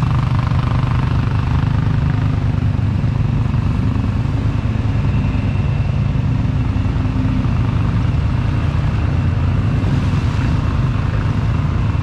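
Off-road all-terrain vehicle engine running steadily under way, a dense low drone that holds an even level throughout.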